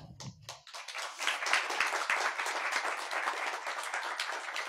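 Audience applauding. The clapping swells about a second in and then slowly tapers off.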